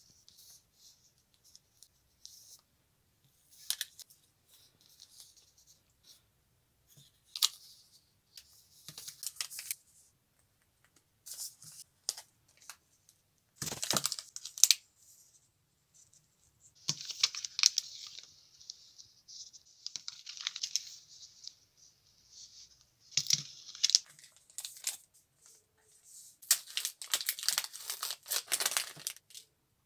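Chocolate bar wrappers crinkling and tearing as they are handled and torn open, in short bursts with quiet gaps between. The longest stretches of crinkling come past halfway and near the end, as a wrapper is peeled back off the bar.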